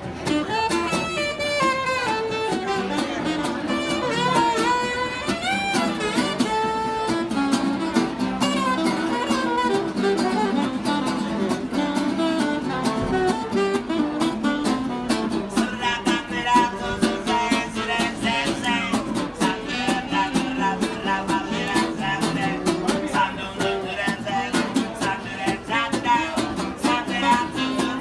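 Street buskers playing live music on saxophone and guitar. In the first few seconds the lead line slides up and down in pitch, then settles into a steady run of plucked notes.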